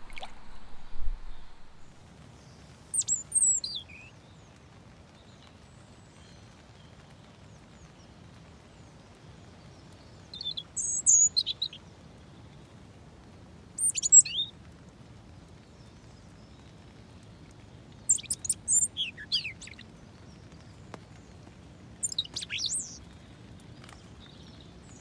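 European robin singing: short phrases of high, thin, quickly sliding notes, five of them, with pauses of a few seconds between. A brief low knock comes near the start.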